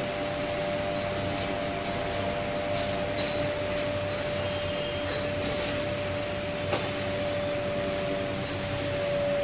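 Steady indoor machine hum with a constant mid-pitched tone, and a few faint clicks.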